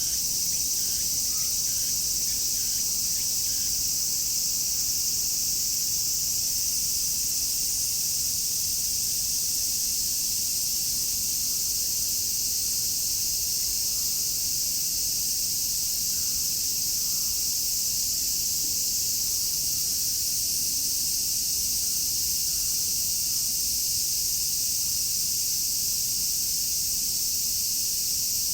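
A dense, steady chorus of cicadas buzzing high and continuously, many insects calling at once (semi-shigure), with a few faint short calls lower down.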